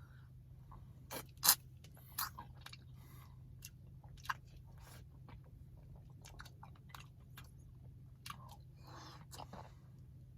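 Close-up chewing and crunching of an ice cream Blizzard with peanut and candy pieces, with scattered sharp clicks, the sharpest about a second and a half in.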